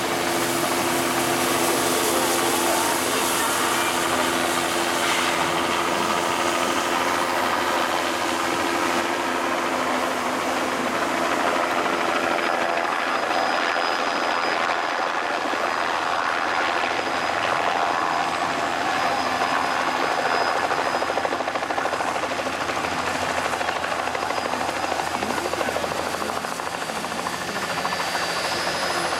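Steam locomotive working a passenger train past at close range: a steady, continuous mix of exhaust and steam noise, with a low steady hum in roughly the first ten seconds.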